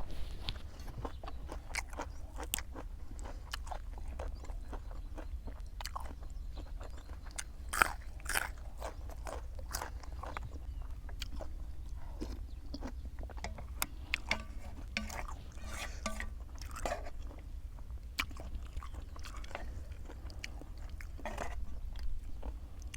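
Close-up eating sounds: crunching bites and chewing, irregular clicks and crackles of food being bitten and chewed, over a low steady hum.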